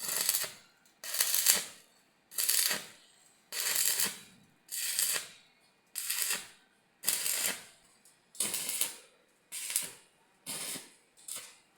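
Welding in short repeated bursts, as in a row of tack or stitch welds: about eleven bursts of roughly half a second to a second, coming about once a second, each starting suddenly and tailing off.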